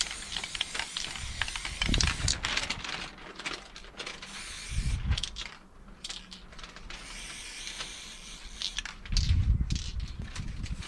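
Handling of an aerosol spray can and paper stencil sheets: irregular clicking, rattling and paper rustling. Gusts of wind rumble on the microphone in low surges, about two seconds in, midway and near the end.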